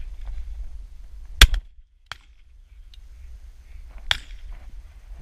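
A shotgun fired close by: one loud, sharp bang about a second and a half in, with a fainter sharp bang just after four seconds.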